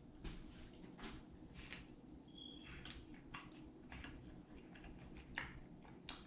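Quiet, faint squishing and small soft clicks of fried chicken being pulled apart and eaten, with one sharper click about five seconds in.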